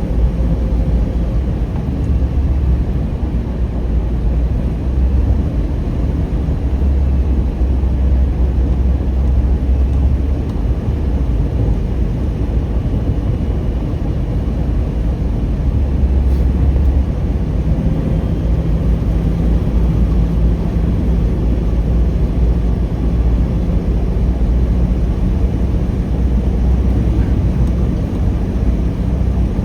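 Steady road and engine rumble inside a moving car's cabin, low and unbroken throughout.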